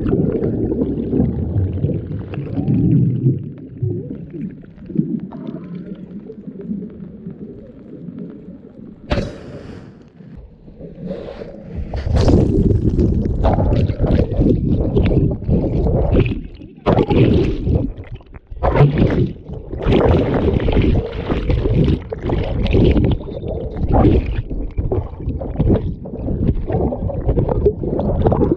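Sea water sloshing and gurgling in rough, rumbling gusts as people swim, with one sharp knock about nine seconds in; the noise grows heavier and more broken from about twelve seconds in.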